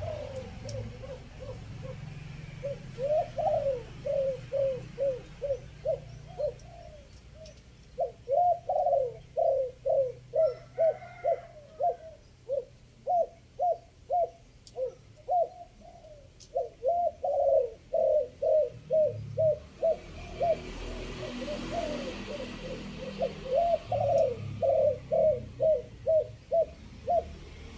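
Spotted dove cooing, the 'three-kook' call used as a lure: long runs of short, low, rapidly repeated coos with a few brief pauses between runs. A low hum sits underneath, and a short rushing noise comes about two thirds of the way through.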